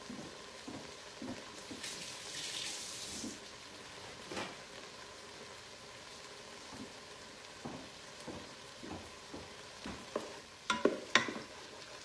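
Ground beef sizzling softly as it browns in the Ninja Foodi's nonstick inner pot on sauté, nearly done. Near the end a wooden spatula clacks and scrapes against the pot as the beef is stirred.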